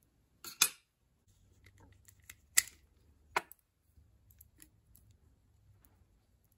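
Small metal distributor parts clicking and clinking as they are handled and set down on the workbench: a handful of sharp clicks, the loudest about half a second, two and a half and three and a half seconds in.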